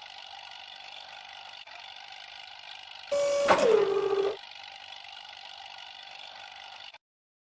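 Steady mechanical whirring hum of a knuckle boom loader's machinery. About three seconds in, a louder sound of just over a second holds a tone and then drops in pitch. The hum cuts off near the end.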